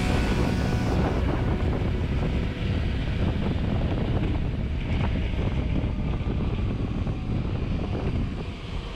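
Steady wind rushing over the microphone, a broad low rumble of moving air with no clear tone in it.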